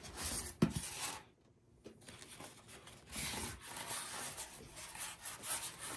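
Packing material rubbing and scraping against a cardboard box as it is pulled out around a speaker, with a sharp knock about half a second in.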